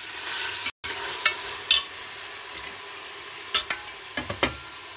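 Chicken pieces frying in oil and sauce in a metal pot, with a steady sizzle, while a metal slotted spoon stirs them and knocks against the pot about six times.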